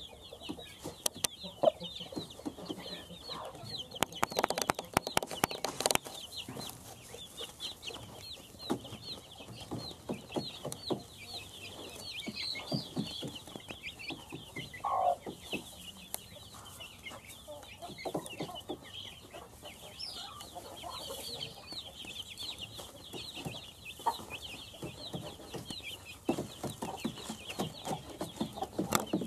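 Chicks peeping in many quick, high chirps while a mother hen clucks now and then. Sharp taps and rustles of pecking and scratching in rice husk bedding come in between, most thickly a few seconds in.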